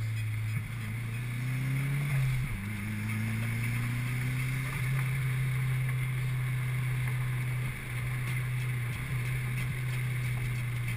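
Mazdaspeed's turbocharged four-cylinder engine heard from inside the cabin, pulling with rising revs, dropping in pitch at an upshift about two seconds in, climbing again, then holding a steady cruise over road noise.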